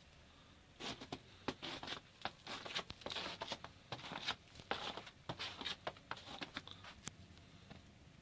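Close, irregular crunching and rustling: a dense run of short scrapes that starts about a second in and stops about a second before the end.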